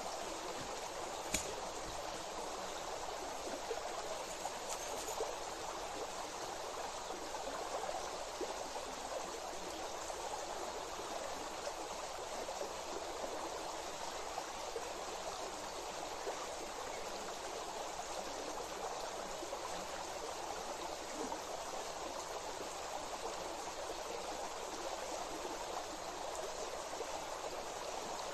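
Flowing water running steadily, with a single sharp click about a second in.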